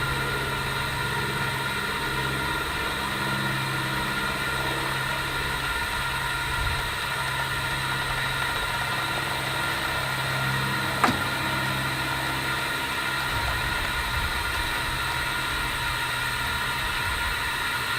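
Steady machine hum from the air supply inflating a UV spot-repair packer, with a single sharp click about eleven seconds in. A low part of the hum drops away a little later.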